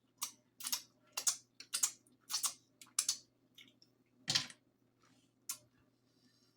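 Close-miked eating sounds from a seafood boil: a quick, irregular run of about ten short, sharp clicks and cracks, with one heavier crack about four seconds in.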